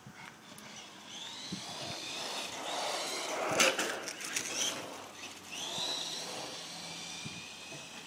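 Toy remote-control car's small electric motor whining as it speeds up across tarmac, twice, the pitch rising and then holding. About midway there is a burst of sharp clattering knocks, the loudest moment.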